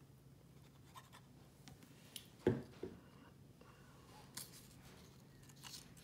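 Faint scratching and rustling of a glue-covered cardboard spine strip being handled and laid against a book's spine, with one low thump about two and a half seconds in, a smaller one just after, and a few light taps later.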